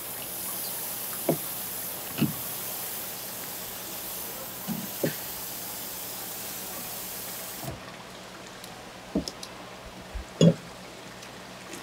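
Steady hiss of running water that cuts off about eight seconds in, over scattered soft knocks and taps as gloved hands and a knife work sea squirts on a plastic cutting board. The loudest knock comes near the end.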